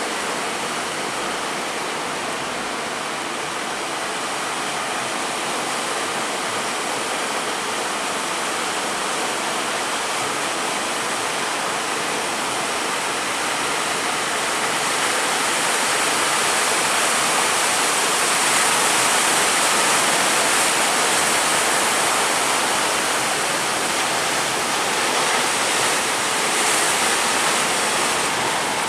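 Steady rushing of rough sea water and surf, swelling a little louder about halfway through.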